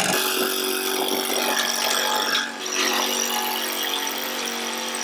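Garden tractor's engine and its hydraulically powered front mower attachment running steadily while cutting through brush, the sound briefly dropping about halfway through.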